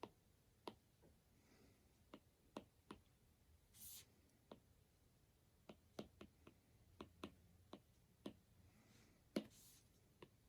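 Faint, irregular clicks and taps of small hard objects being handled, about twenty in all, with two brief rustles, about four seconds in and near the end.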